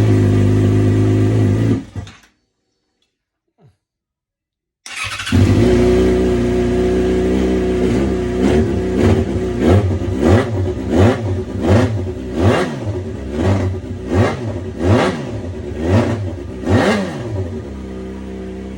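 2011 Yamaha FZ6R's inline-four engine running on its newly replaced fuel pump. It runs for about two seconds and cuts out. After a few seconds of silence it starts again, is blipped up and down about ten times in quick succession, and settles to a steady idle near the end.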